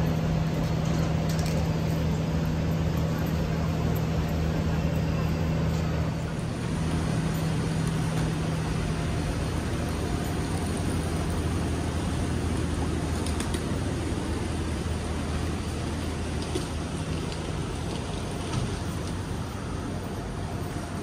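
Busy city street ambience: general traffic noise under a steady low mechanical hum that fades away about three-quarters of the way through.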